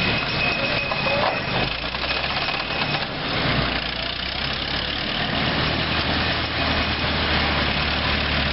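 1918 Nash Quad's original 28.9 hp four-cylinder engine running steadily at low speed as the truck drives slowly across grass, with a faint high steady whine for the first few seconds.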